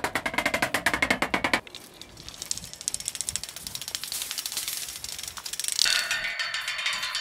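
A stick dragged along fences in turn, making a fast clatter of strikes. First it runs along a corrugated iron sheet, then it rattles more faintly and brightly along chain-link wire, and near the end it strikes along picket pales that ring with a few steady pitches.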